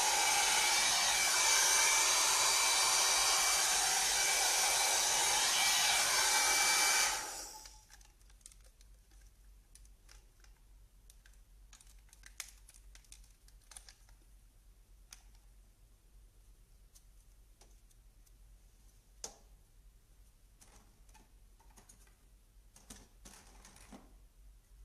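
Electric hot-air brush styler blowing, a steady rush of air with a thin whine, switched off about seven seconds in. After that, scattered light clicks as the styler and its plastic brush attachment are handled.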